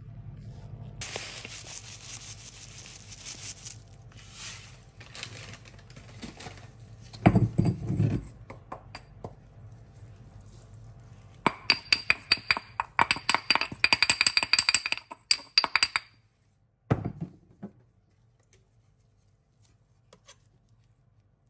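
Kitchen clatter: a rustling hiss for a couple of seconds, then a heavy thump, then a fast run of clinks and taps with a ringing tone for about four seconds, and one more thump.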